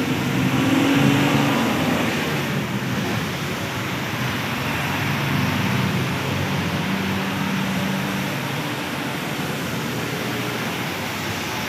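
Road traffic passing on a wet road in the rain: an SUV, a fuel tanker truck, a cargo truck and a bus go by one after another. Their engines hum, rising and fading as each passes, over a steady hiss of tyres on wet asphalt and rain.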